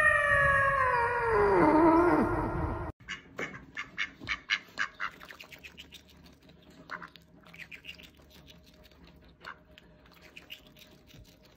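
A loud pitched tone sliding steadily down like a siren winding down, cut off sharply about three seconds in, followed by a fainter run of short, quick chirping animal calls, several a second with pauses.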